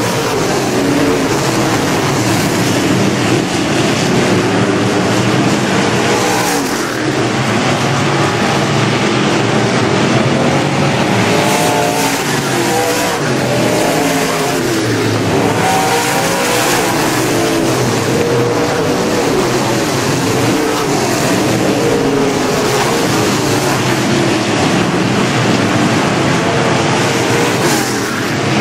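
A pack of B-Mod dirt-track race cars running at racing speed, several V8 engines overlapping and rising and falling in pitch as they rev through the turns and pass by.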